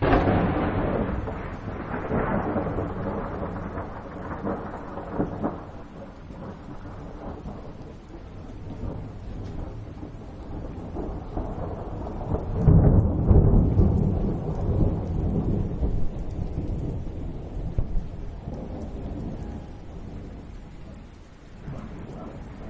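Thunderstorm sound: thunder breaks loudly at the start and rolls away, rumbles again a few times, and peaks in its deepest, loudest roll a little past halfway, all over a steady hiss of rain.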